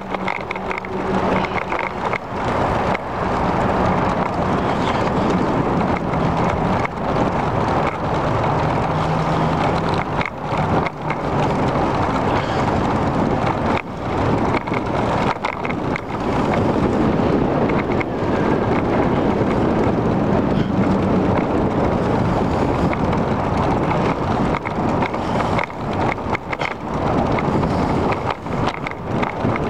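Riding noise from a bicycle on a paved path: a steady rush of wind on the microphone mixed with tyre and road rumble, broken by brief dips.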